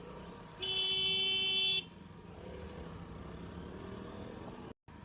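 A vehicle horn blares once, a steady held tone of a little over a second, over the hum of a motorcycle riding in traffic.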